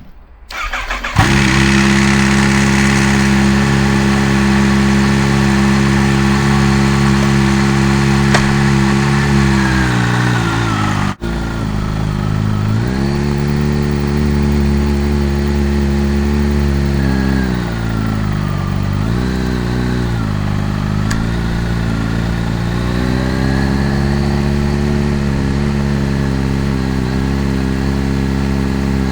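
Kawasaki Z H2's supercharged inline-four cranked on the starter and catching about a second in: a loud cold start. It settles into a high fast idle, which drops to a lower idle about ten seconds in. The idle then wavers, dipping and recovering a few times.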